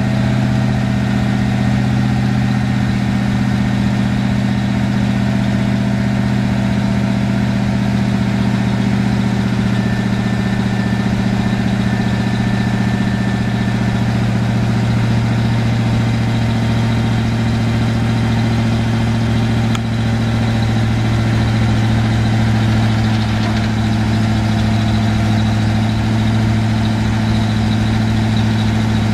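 1984 Custom Deluxe 30 dump truck's engine idling with a steady hum while the hydraulic hoist raises the dump bed.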